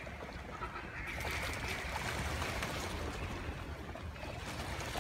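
A huge flock of mallards quacking and calling all at once, a dense continuous din with a rushing sound beneath it that swells about a second in.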